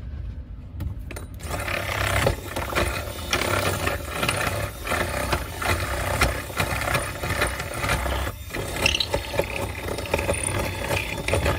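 A power drill working the rough edge of a freshly cut vent hole through the boat's wooden side, grinding and rattling unevenly to tidy the hole.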